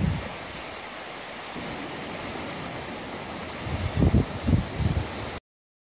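Fast-flowing river water rushing steadily, with a few low buffets of wind on the microphone about four seconds in. The sound cuts off abruptly after about five and a half seconds.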